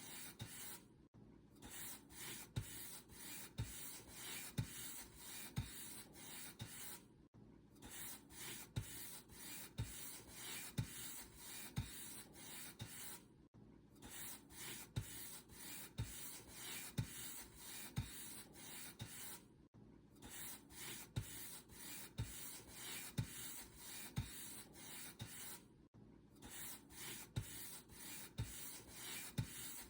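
Paint brush stroking across a surface in a steady rhythm of scratchy strokes, about one and a half a second, with a brief pause about every six seconds.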